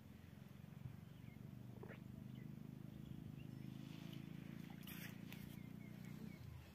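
Quiet outdoor ambience: a steady low drone with a few faint, short bird chirps, and a couple of soft clicks about five seconds in.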